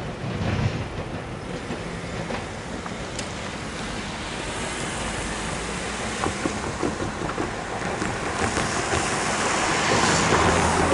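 Cars driving over a railroad crossing as the gates lift. There are a few light knocks as tyres cross the rails, and the traffic noise grows louder near the end.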